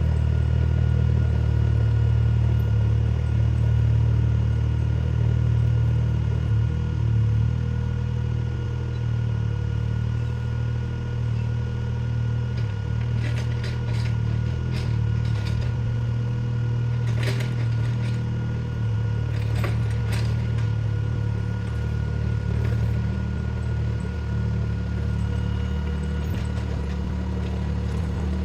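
Mini excavator's diesel engine running steadily, with a cluster of sharp clanks partway through as the bucket works crushed stone.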